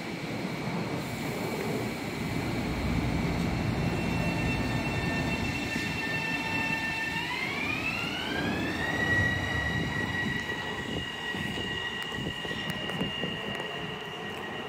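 Long Island Rail Road M7 electric train pulling away, with a steady rumble of wheels on rail. A high whine from its traction motors sits over the rumble; it climbs in pitch about seven seconds in as the train gathers speed, then holds steady.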